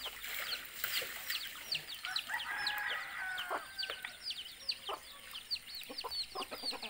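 Chickens in a yard: a steady run of short, high, falling peeps, about three or four a second, with a longer rooster call, stepping down in pitch, a little after two seconds in, and a few short clucks near the end.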